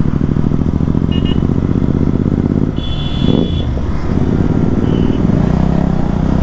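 Motorcycle engine running while riding on the road, with wind rush on the microphone; the engine note dips briefly about three seconds in, then picks up again.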